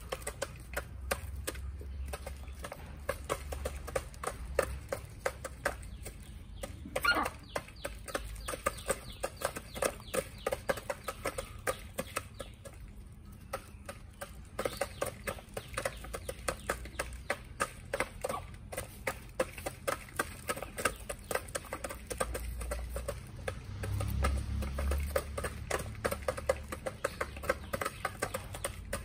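Backyard chickens feeding: rapid, irregular tapping of beaks pecking at feed on the ground and feeder, with clucking, one louder call about seven seconds in.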